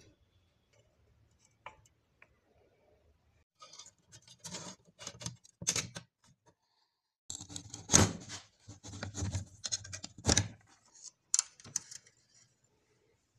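Steel air rifle parts clinking, scraping and knocking as they are handled and fitted together, with a string of sharp clicks and knocks starting about four seconds in, the loudest about eight seconds in.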